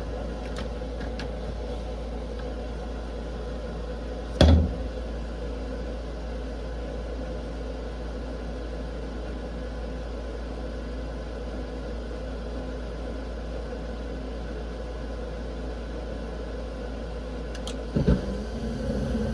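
High-efficiency furnace running with a steady mechanical hum. A loud thump about four seconds in, and a smaller knock near the end.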